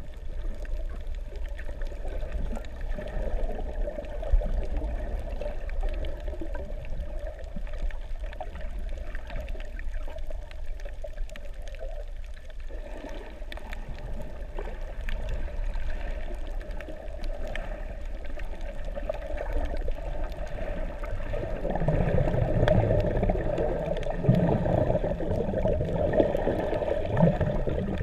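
Underwater ambience picked up by a camera submerged on a coral reef: a steady, muffled water noise with scattered faint clicks. It grows louder a little past two thirds of the way through.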